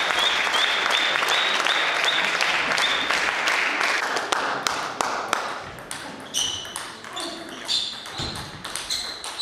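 Table tennis ball: a run of quick bounces, then the serve and a rally, with sharp pinging clicks of the ball off the bats and table. A steady noisy hall background fills the first half and drops away about four seconds in.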